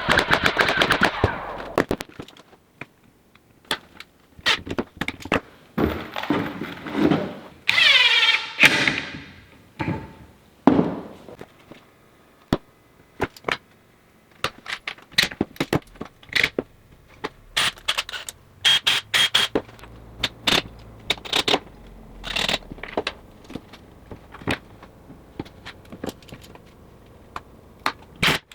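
Cabinet assembly: a cordless drill runs in short whirring bursts, one slowing with a falling pitch, among many sharp clicks and knocks of panels, screws and tools being handled.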